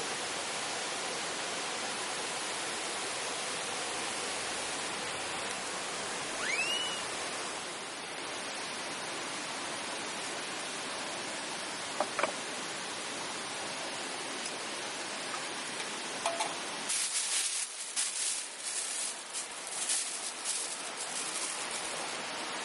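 Steady rush of flowing stream water, with one short rising call about six and a half seconds in. About seventeen seconds in the rush cuts off and gives way to irregular crackling and rustling.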